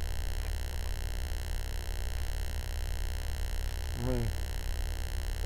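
Steady low hum under an even hiss, with a short voiced 'hm' from a man about four seconds in.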